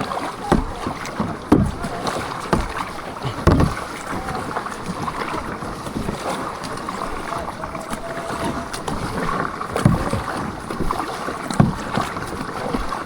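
Canoe being paddled on a river: water swishing, with low knocks about once a second during the first few seconds and a few more later on, and wind on the microphone.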